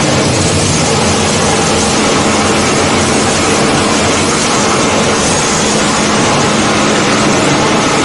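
Plastic bag crushing and washing line running: a loud, steady mechanical din with a low motor hum underneath.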